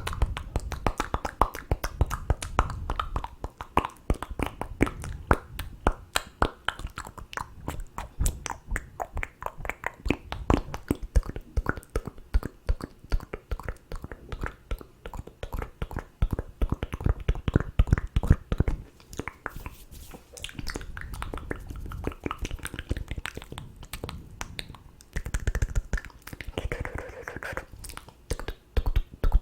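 ASMR mouth sounds made close to a microphone: a rapid, continuous stream of wet tongue clicks, lip smacks and pops, several a second, with soft low thumps underneath.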